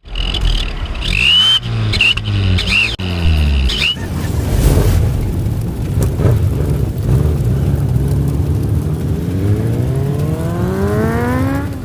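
Car engine revving up and down several times, with a high whistle that wavers along with the revs, then running steadily and accelerating, its pitch climbing near the end.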